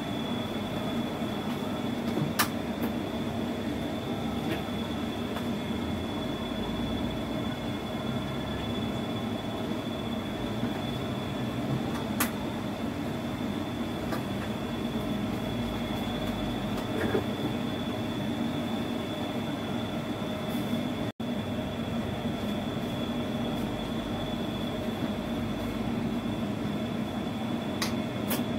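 Steady electric fan hum with a thin high whine, like a kitchen extractor fan running, broken by a few light clicks of kitchen utensils.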